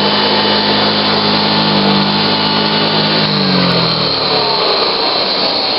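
Hoover Model 60 vacuum cleaner, fitted with its cloth bag and original muffler, running with a steady motor hum; about three and a half seconds in the pitch starts to fall as the motor is switched off and coasts down, while the rush of air carries on.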